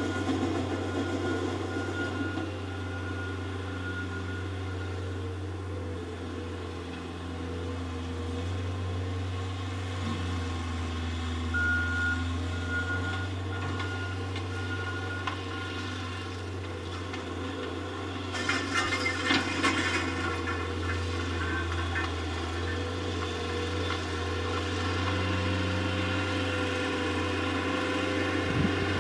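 Diesel engine of a skid-steer loader working a tilled field, running steadily and getting louder near the end as the machine comes closer. A backup alarm beeps in two spells, near the start and again about twelve seconds in, and there is a stretch of clattering about eighteen to twenty seconds in.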